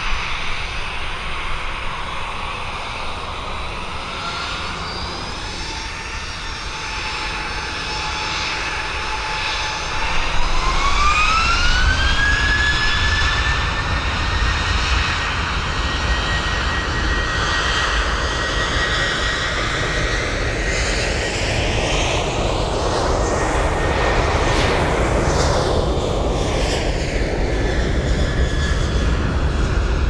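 Boeing 737-800's CFM56 turbofan engines spool up to takeoff thrust about ten seconds in, their whine rising in pitch as the sound grows louder. The airliner then runs at full power down the runway, and the tone sweeps up and down as it passes by.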